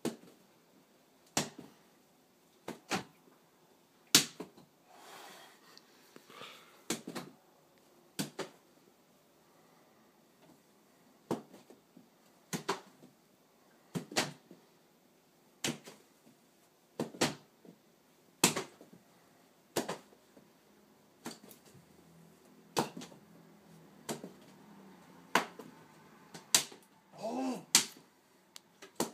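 A belt whipped against a wall light switch over and over, a sharp smack about every one and a half seconds, as it tries to knock the switch on.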